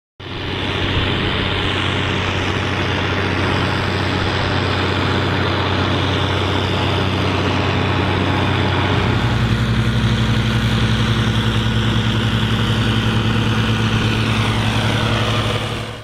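Ford County 1184 TW tractor's six-cylinder diesel engine running steadily under load while pulling a six-furrow plough; about nine seconds in the engine note changes and grows deeper and stronger.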